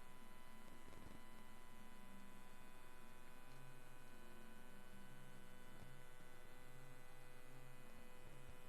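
Steady faint electrical mains hum with a low hiss; no other sound stands out.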